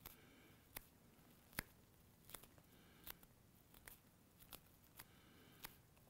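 Small scissors snipping through spun deer hair, trimming a deer-hair fly body to shape: faint, sharp snips about one every three-quarters of a second.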